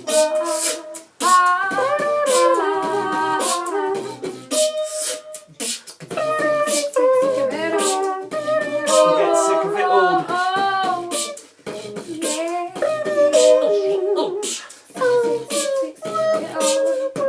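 Vocal beatboxing: sharp hissing, snare-like mouth hits mixed with wordless, gliding sung or hummed melody lines.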